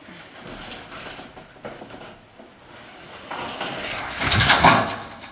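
A corrugated roofing panel being pried loose and pushed off a shed roof. Lighter scraping and handling noises come first, then a loud scraping rattle as the panel slides over the edge, loudest between about four and five seconds in.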